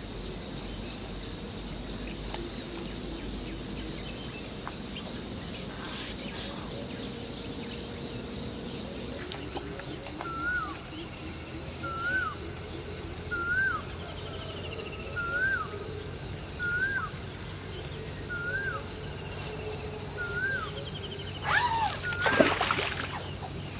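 Steady high-pitched insect buzzing, with a bird repeating one short whistled note that rises and then falls, about every second and a half, eight times from about halfway through. Near the end comes a brief louder burst of noise.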